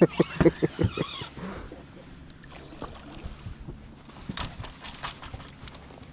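A person's voice in short rhythmic bursts, like laughter, in the first second, then a cluster of sharp knocks and clicks about four and a half seconds in.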